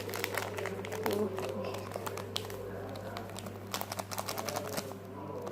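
Handling noises while making slime: scattered light clicks, taps and crinkling from a bottle, spoon and bowl, over a steady low hum.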